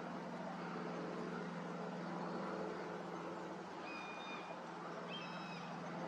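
Strong gusty wind buffeting the microphone, over a steady low drone. About four and five seconds in, two short, even-pitched high calls sound about a second apart.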